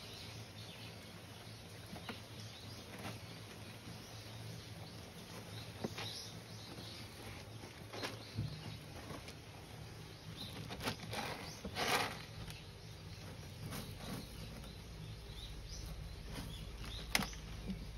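A cat scratching and digging in pellet cat litter: scattered rustles and pellet clicks, with one longer, louder scrape about two-thirds of the way through.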